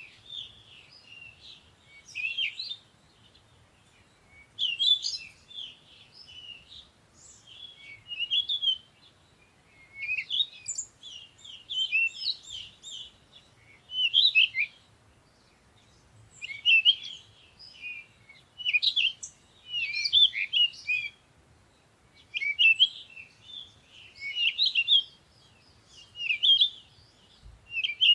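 Birds singing: quick, high-pitched chirping phrases coming in bursts about every two seconds.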